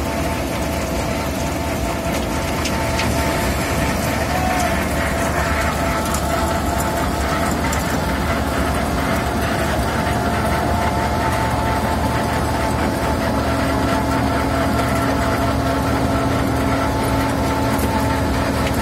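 Wirtgen W 100 H cold milling machine at work milling the asphalt road surface: its diesel engine and cutting drum make a steady, loud mechanical drone with a steady whine over it.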